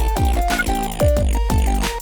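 Electronic dance music with heavy, sliding bass hits and a quick synth line, in a dubstep style.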